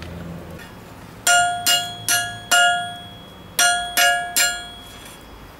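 Hand hammer striking a hot steel tongs blank on a steel block anvil, forging it: seven ringing blows, four in quick succession, then a short pause and three more.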